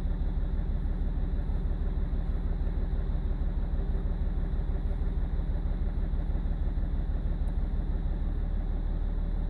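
BMW E46 330d's M57 six-cylinder diesel idling steadily with an uneven, lumpy beat, playing up while an INPA diagnostic setting is applied. The owner traces the rough idle to a failing injector, injector 6.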